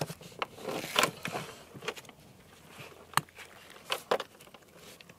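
Hands handling a plastic-wrapped ballistic gel block on a table: a handful of sharp, light taps and knocks, with some rustling of the wrap in the first second or so.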